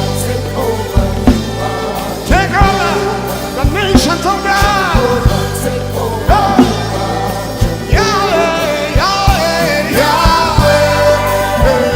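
Gospel worship music: a singing voice sliding between notes over band accompaniment with a steady bass and drum strokes.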